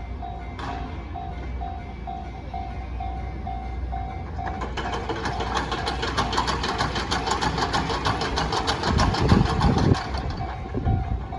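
Railway level-crossing alarm sounding a steady repeating ding. From about four and a half seconds in, a train passes over the crossing, its wheels clattering in a quick even rhythm and growing louder toward the end, briefly drowning out the alarm.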